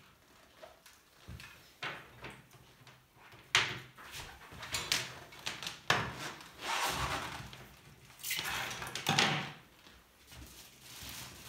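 Handling noises from a power cable and plug being sorted and plugged in: a few sharp clicks and knocks, with bursts of rustling in between.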